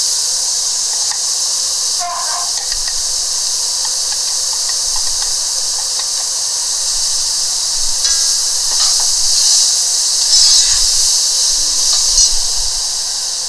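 Chopped onion and vegetables sizzling in a hot oil-and-flour roux in a cast-iron pot as they are stirred with a metal spoon; a steady hiss that grows a little louder after more vegetables go in.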